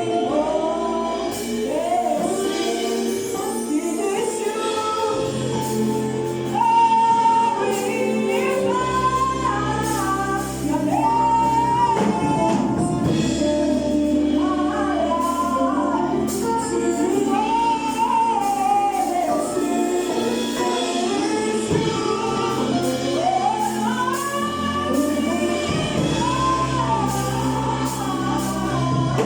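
Gospel choir singing with instrumental accompaniment, the voices sliding between notes over a bass line that holds long low notes.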